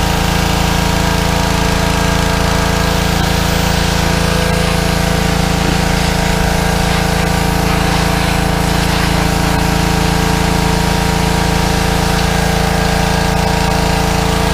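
Petrol pressure washer engine running steadily and evenly, with a fine hiss over it. Its carburettor has been cleaned of dried fuel and it now runs smoothly.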